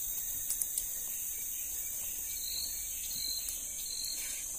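Steady high-pitched drone of a forest insect chorus, with short chirps repeating about twice a second in the second half and a couple of faint clicks about half a second in.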